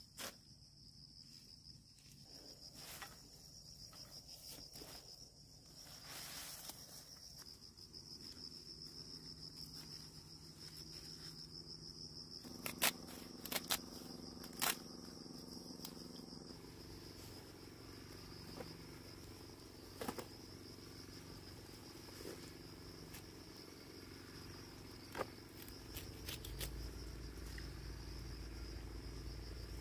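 Field insects chirring in a steady, high, pulsing trill, with a few sharp snaps around the middle and later on as a knife cuts through bunches of peanut stems.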